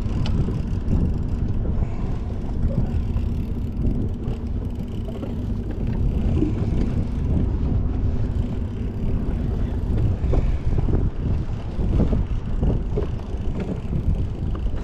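Small fishing boat under way: wind buffets the microphone over a steady low motor hum and water noise, with gusty bumps throughout.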